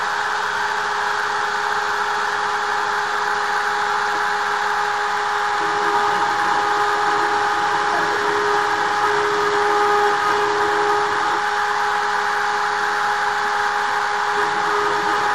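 Hobby-class desktop CNC router milling MDF: the spindle runs with a steady whine over the hiss of the cutter chipping through the board, the cutting noise swelling a little in the middle.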